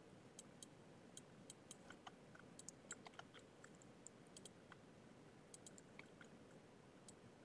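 Near silence: room tone with faint, irregular computer mouse clicks, several a second at times.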